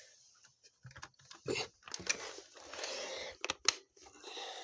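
Sharp plastic clicks and knocks with rustling as a Nerf Stampede blaster is handled, including a close pair of clicks past the halfway point.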